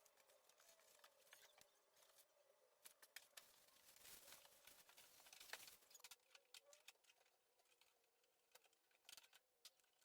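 Near silence, with faint scattered clicks and a soft rustle about four to six seconds in.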